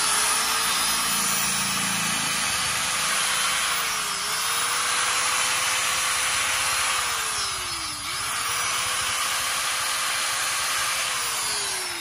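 Makita 100 V, 720 W angle grinder running free with no disc fitted, at a steady high whine. Its speed dips briefly twice, about four and eight seconds in, and recovers, then it starts winding down near the end.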